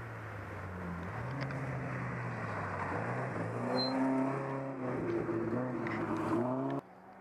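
Rally car at full throttle approaching and passing on the stage, its engine note climbing in steps as it revs through the gears, then cutting off suddenly near the end.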